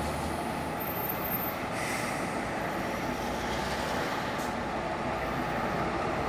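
Heavy lorry diesel engines running steadily as vintage and modern lorries creep forward at walking pace, a continuous low rumble.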